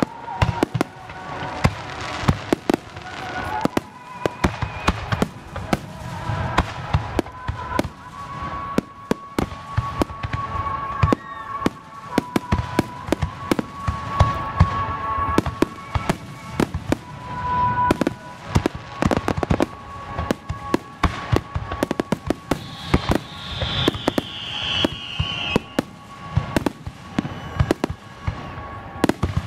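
Aerial fireworks shells bursting in a rapid, continuous barrage: overlapping booms and crackling, several reports a second.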